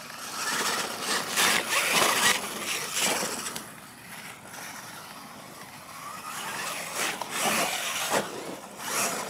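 Radio-controlled monster truck driving over dirt and grass, its motor and tyres surging louder and easing off with the throttle, loudest in bursts about two seconds in and again near the end.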